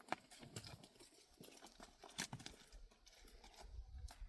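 Near silence with faint, scattered ticks and short rustles.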